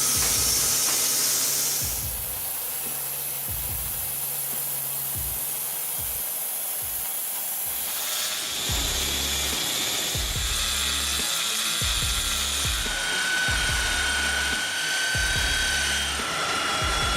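Background music with a steady bass beat, under the whir of a power tool working wood. About eight seconds in, the tool sound changes to a higher, steady whine.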